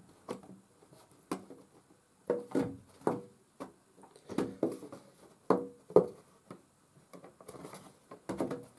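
Thin wooden kit parts knocking and clicking as a bridge side is pushed onto the deck, its tabs seated in the slots. The knocks come irregularly, with several louder ones in the middle.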